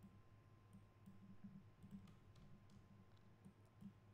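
Near silence, with a few faint computer mouse clicks over a low steady hum.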